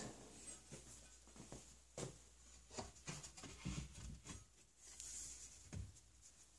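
A few faint knocks and scrapes of a steel long-rifle barrel being set into the wooden gunstock's barrel channel and pressed down to test the fit.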